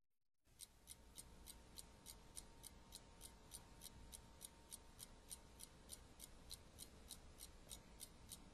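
Faint clock ticking, fast and even at about three and a half light ticks a second, starting about half a second in.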